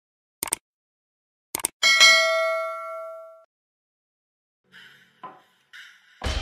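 Two short clicks, then a single bell-like ding about two seconds in that rings and fades out over about a second and a half. A few brief scraping noises follow near the end.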